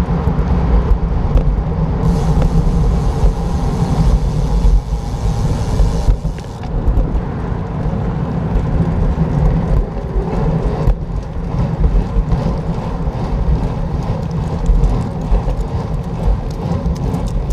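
Continuous low rumble of wind and road noise on the microphone of a camera riding along on a moving bicycle, with the loudness rising and falling unevenly.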